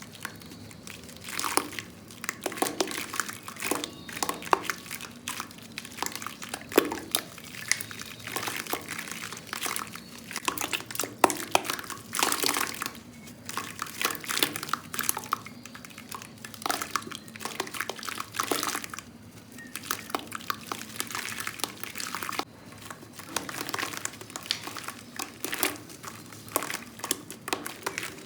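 Soft, crunchy clumps of black sand crumbling, making dense crisp crackles in irregular bursts, with short quieter pauses between handfuls.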